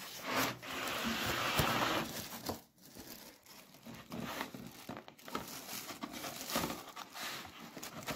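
Cardboard packaging being opened and the plastic wrapping around a new sandwich toaster crinkling as hands handle it. A louder stretch of rustling fills the first two seconds, then lighter crinkling with small clicks and taps.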